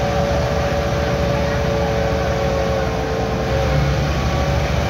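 Tractor diesel engine running steadily at high throttle under heavy load, straining in a tractor tug-of-war (tochan).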